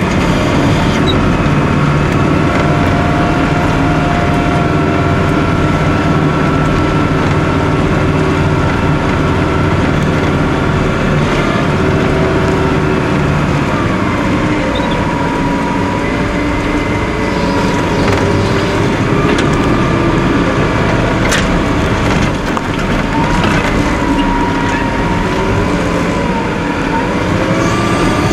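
Caterpillar IT28 wheel loader's diesel engine and hydraulics running steadily under load, heard from inside the cab, with whining tones that rise and fall as the engine speed and hydraulic load change.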